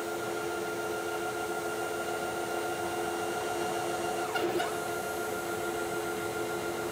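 Stepper motor with a homemade penny damper driving a CNC router's Y axis at 42 inches per minute, a steady whine with several tones. About four and a half seconds in the pitch briefly dips and rises again.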